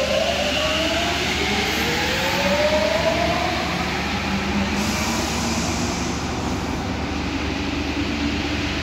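An MP14 rubber-tyred metro train accelerating. Its traction motors give rising whines over a steady rumble for the first three seconds or so, and then it runs on with a steady rumble.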